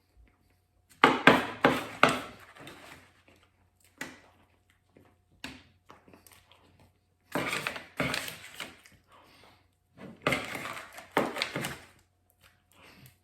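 Spoon and fork clinking and scraping against a pie dish while a soft chocolate pie is scooped up and eaten fast, in three bursts of clatter a few seconds apart with single clicks between.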